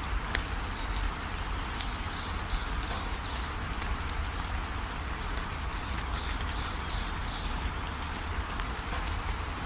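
Steady rain with scattered drop ticks, and a bird calling over it in short high notes repeated about twice a second.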